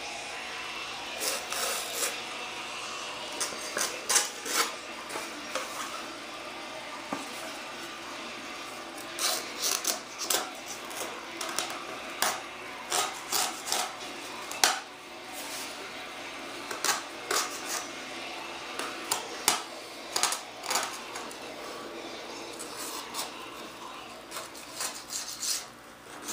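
Single-edge razor blade scraping and trimming cured fiberglass and resin off the edge of a glassed wooden panel, in short sharp strokes that come singly and in quick runs with pauses between, over a steady faint hum.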